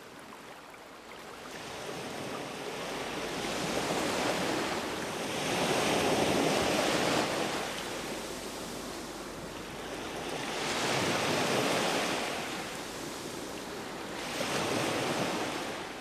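River waves washing up over a sloping riprap stone bank and draining back, swelling and ebbing three times.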